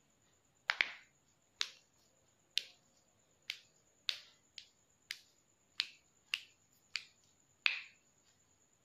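About eleven sharp clicking taps, roughly one every half second to a second, as hands scoop raw tapioca pearls up off a wooden surface.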